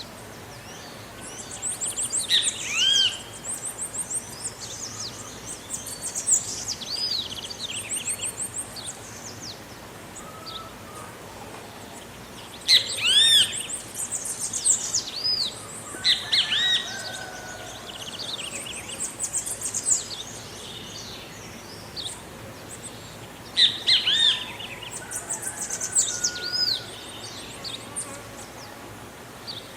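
Great kiskadee (bem-te-vi) calling: loud, arched whistled notes come in bursts every few seconds, with quicker high-pitched chittering between them and a faint steady outdoor background.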